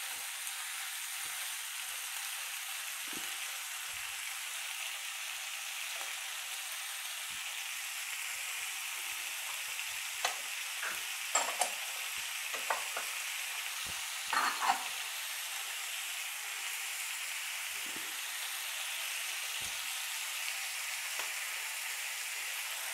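Capsicum and paneer sizzling steadily in oil in a kadai on a gas burner as they cook uncovered. A few short clicks come midway.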